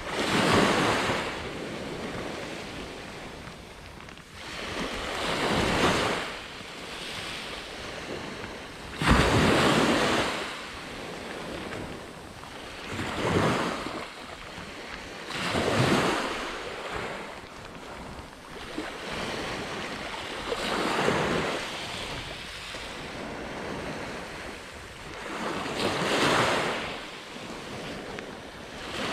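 Waves breaking and washing up a sandy beach, each one swelling and fading about every three to five seconds, with a steady wind hiss between them.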